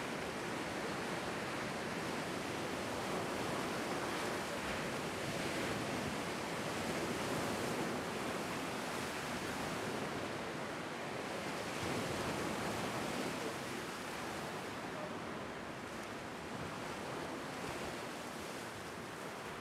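Lake waves breaking and washing over a rocky bedrock shoreline: a steady rush of surf that swells and eases gently, a little softer in the last few seconds.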